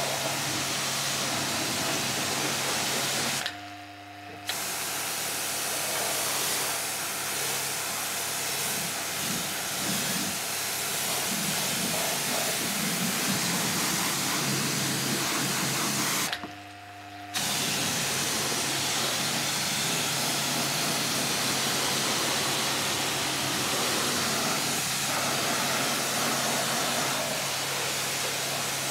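Kranzle K7 pressure washer lance spraying water onto a car's bodywork: a steady hiss over the pump's hum, cut off briefly twice when the trigger is let go, about four seconds in and again just past halfway.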